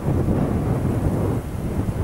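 Boeing 737-800's CFM56 jet engines rumbling loudly as the airliner rolls along the runway, a deep, uneven low rumble with wind buffeting the microphone.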